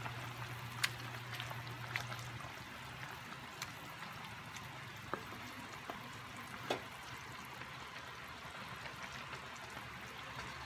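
Sinigang broth in an enamelled cast-iron pot being stirred with a wooden spatula: faint liquid sloshing, with a few light knocks of the spatula against the pot. A low hum cuts off about two seconds in.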